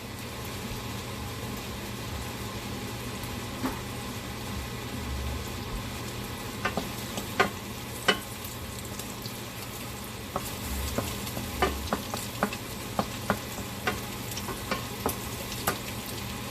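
Chopped garlic and red pepper frying in hot grapeseed oil in a frying pan, a steady sizzle, with a cooking utensil stirring and tapping against the pan; the sharp taps come more often in the second half.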